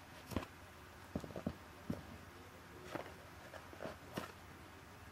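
Fingers handling homemade foam squishy fries in a cardboard fries carton: a few faint, scattered soft taps and rustles.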